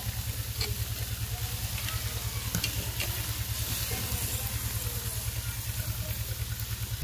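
Fish sizzling on a grate over hot charcoal inside a clay tandoor, with a few light clicks of steel tongs against the grate as the pieces are turned. A steady, fast, low throb runs underneath.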